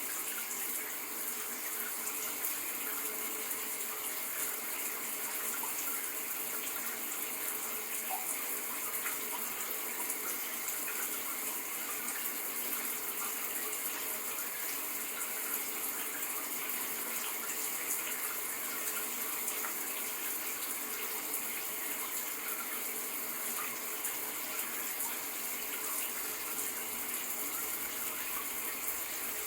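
Running shower water: a steady, even hiss of spray falling without a break.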